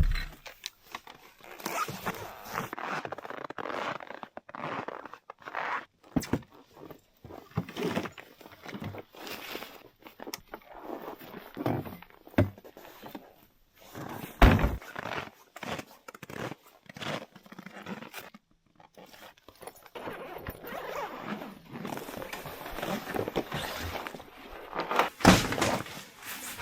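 Crunching steps and handling noises in deep, very cold snow: irregular thunks and scrapes with short pauses between them.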